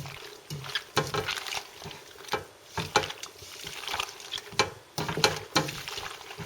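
Cooked macaroni coated in beaten egg being mixed in a pan: wet, sticky stirring with repeated sharp knocks against the pan, about two a second.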